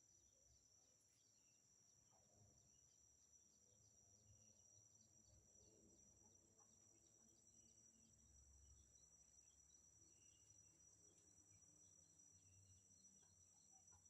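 Near silence: faint outdoor ambience with a steady high insect drone and a few faint, short chirps.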